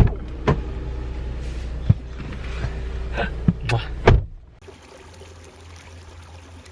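Low car-cabin rumble with a series of sharp clicks and knocks, ending in a loud thump about four seconds in, like a car door being handled and shut. Then the sound drops to a faint steady hiss.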